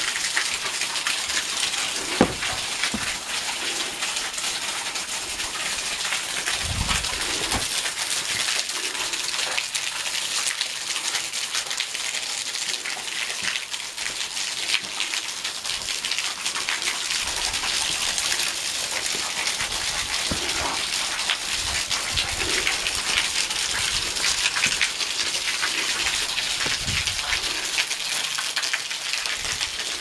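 A thin waterfall stream dropping from a sandstone overhang and spattering on the rock below: a steady hiss of splashing water with fine drips throughout. A sharp knock about two seconds in and a few low thumps later on.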